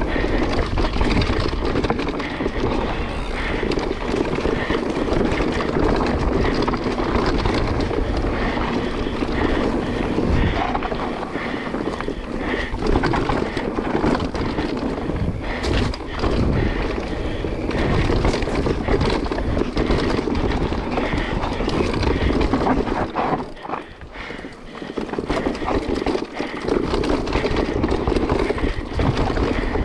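Mountain bike ridden fast down a dirt trail: steady wind rush on the microphone over tyre rumble and many small knocks and rattles from the bike, easing off briefly about three-quarters of the way through.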